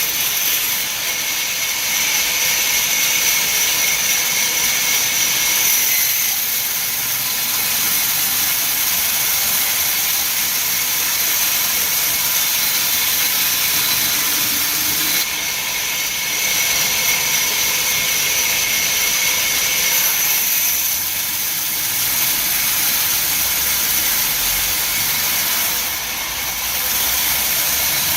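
Heavy wood-cutting machinery running: a steady high-pitched whine over a loud hiss, changing abruptly a few times.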